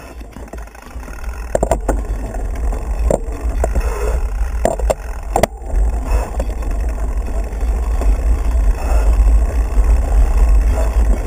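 Wind rumbling over an action camera's microphone as a mountain bike gathers speed, with a few sharp clicks and knocks from the bike in the first half.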